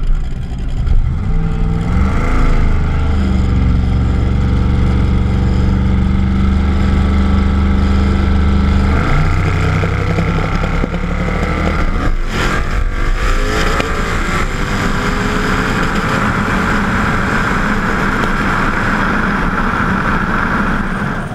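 Twin-turbo Trans Am's engine heard from a camera mounted on the car: it revs up and holds a steady note for several seconds, staged at the start line, then after a few sharp cracks about twelve seconds in it runs at full throttle as the car launches and accelerates down the drag strip.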